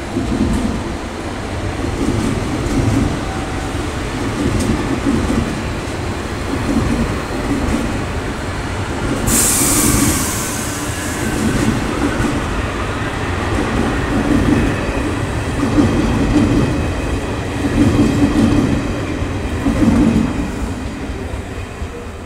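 Renfe Class 447 electric multiple units and a Class 592 diesel multiple unit passing through the station. The wheels clatter over the rail joints, swelling every second or two. About nine seconds in, a sharp hiss lasts about two seconds.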